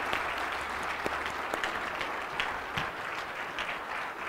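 Congregation applauding: many hands clapping together in a steady, dense wash of claps.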